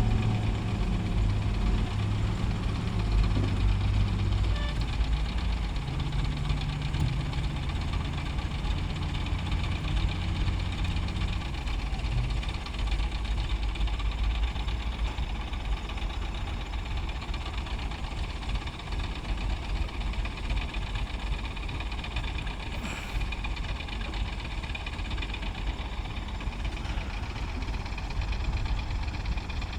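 Heavy diesel engine running. Its low note shifts up and down for the first dozen seconds, then settles into a steady rumble.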